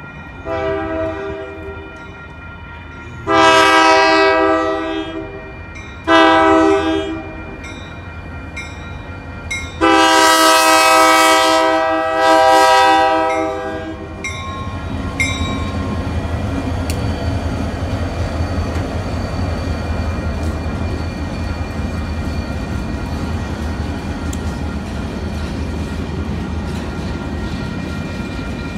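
Union Pacific diesel locomotive's multi-note air horn sounding for the grade crossing: four blasts, the third short and the last the longest at about four seconds. After that comes the steady noise of the locomotives and flatcars rolling across the crossing.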